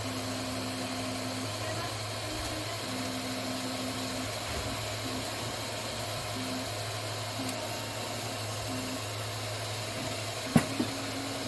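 Anet A8 Plus 3D printer running: a steady fan hum, with the stepper motors whining in short stretches of a steady tone that start and stop as the print head moves. A sharp click about ten and a half seconds in.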